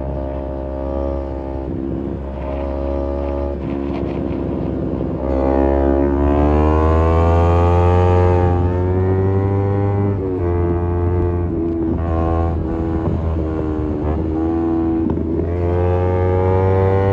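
Kawasaki Z250 parallel-twin engine through an aftermarket SeaPro muffler, riding through the gears. The revs climb about five seconds in, drop off around ten seconds, and climb again near the end.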